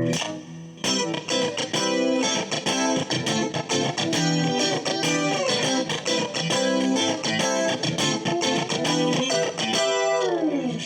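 Fresher Straighter FS-331S electric guitar, made in Japan 1974–77, played with a clean tone: a run of picked notes and chords, with a slide down in pitch near the end.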